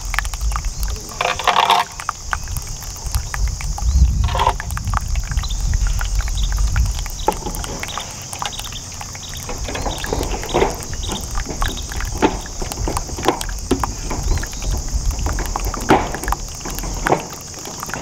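Insects keep up a steady high-pitched chorus, broken by scattered irregular clicks and knocks and a low rumble that comes and goes.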